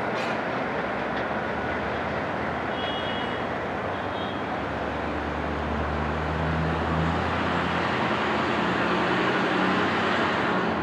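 Subway train running away along an elevated line: a steady rumble of wheels on rail. A low hum builds in the second half, and faint brief squeals come about three and four seconds in.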